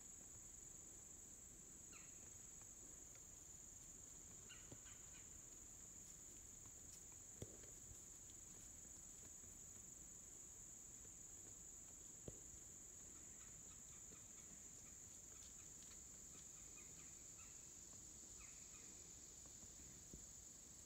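Near silence in the woods: a steady, high-pitched insect drone, with a few faint chirps and a few soft clicks.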